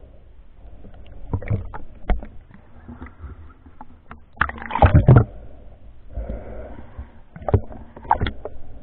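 Swimming water heard through a waterproof camera housing: a muffled sloshing rumble with several sharp knocks, and a loud splash about halfway through as the camera comes up through the surface and goes back under.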